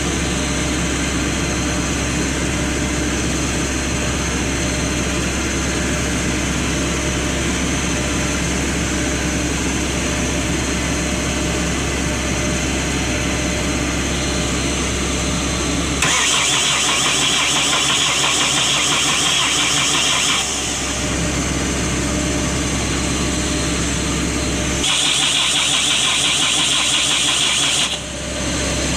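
Excavator diesel engine turning over on its starter with a steady drone, pushing fuel through the newly fitted injection pump to bleed the injector lines. Twice, about 16 and 25 seconds in, the sound turns higher and hissier for a few seconds.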